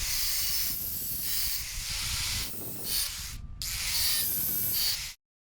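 A steady hiss, like a spray, in three or four spliced stretches, changing in tone at each cut with a brief drop about three and a half seconds in, then cutting off suddenly.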